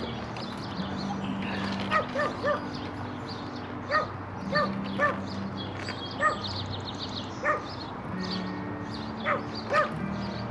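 A small dog yipping, about ten short, high barks at uneven intervals.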